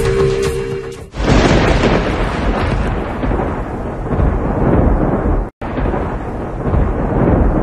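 Dramatic music breaks off about a second in and a thunder-like rumbling sound effect takes over. The rumble cuts out for an instant a little past the middle, then carries on.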